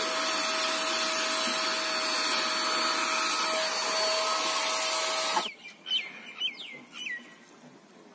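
Electric paint spray machine running with a steady motor whine and the hiss of spray, cutting off suddenly about five and a half seconds in. After it, a bird gives several quick, falling chirps.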